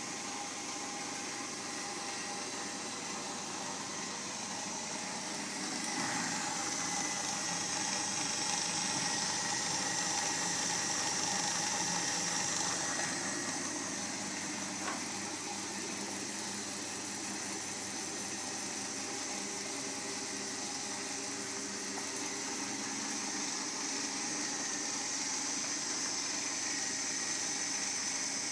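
Homemade wooden 16-inch bandsaw running, a steady whir of the motor and spinning wheels with a faint hiss. No noise comes from the bearings, whose axles are fitted with clamps and opposing retaining washers.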